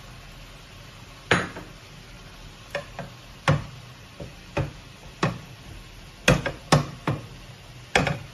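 Sharp, irregular knocks and clacks of a plastic spatula and a frying pan on a gas hob, about a dozen strikes, over a low steady hum.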